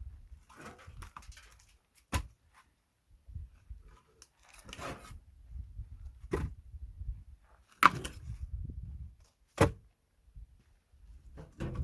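Split pine firewood logs knocking together as they are handled and stacked: a few sharp wooden knocks a second or two apart, the loudest about eight seconds in, with low shuffling and rustling between them.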